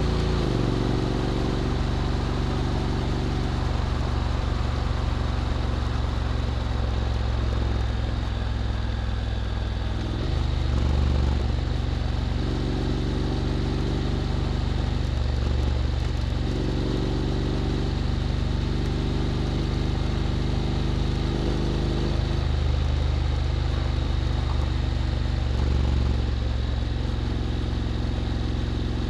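Honda X-ADV 750's parallel-twin engine running through an SC-Project titanium slip-on exhaust while riding, its pitch dropping just at the start and then holding fairly steady with a few brief swells in the low rumble, over wind and road noise.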